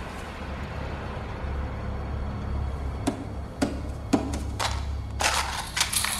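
A few sharp clicks about half a second apart, then a quick rattling clatter as a box of matches falls and the matches scatter across a hard floor, over a low steady hum.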